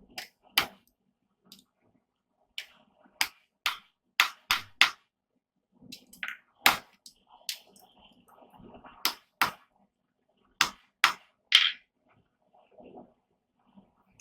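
Hand hammer striking steel on an anvil in light, irregular blows, a dozen or more sharp strikes in short groups with brief pauses, some of them ringing briefly.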